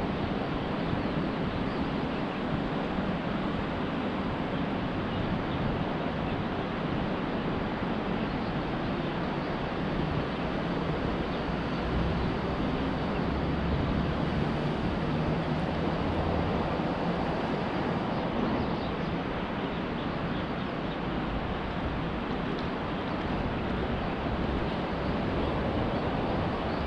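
Steady rushing outdoor background noise with no distinct events.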